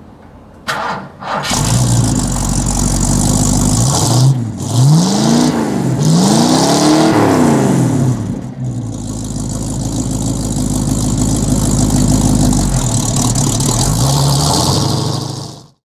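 1970 Mercury Cougar XR-7's V8 being started: it cranks and catches about a second and a half in, then idles. Its revs are blipped three times in quick succession, each rising and falling, and it settles back to idle, with one smaller blip near the end before the sound cuts off.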